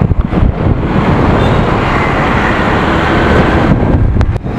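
Wind buffeting an action-camera microphone on a moving scooter, a loud steady rush over the scooter's running and road traffic noise.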